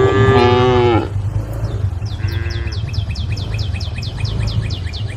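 Cow mooing, a call of about a second that slides down at the end, then a shorter, fainter moo about two seconds in. A bird calls in rapid repeated chirps through the second half, over a steady low hum.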